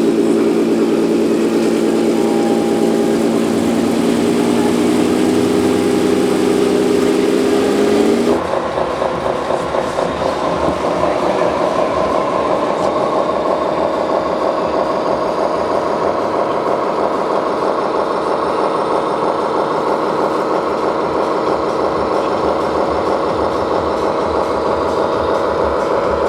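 Radio-controlled scale model trucks and construction machines running, a steady engine-like drone. About eight seconds in it switches abruptly to a different, higher-pitched steady hum.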